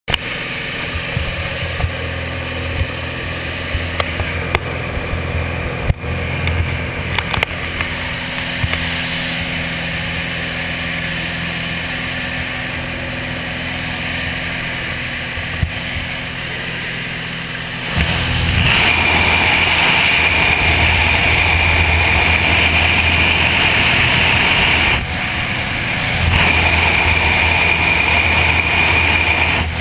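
Propeller engine of a small skydiving jump plane droning steadily inside the cabin. About eighteen seconds in it gets much louder, with a rush of wind noise, as the jump door is opened.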